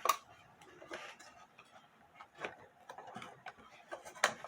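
Irregular clicks and knocks of a screwdriver and small metal and wooden clock parts being handled while an old Seikosha wall clock is taken apart, with a sharp click right at the start and a few more spread unevenly through.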